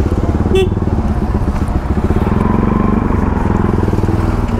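Motorcycle engine running steadily at low road speed, with a short click about half a second in.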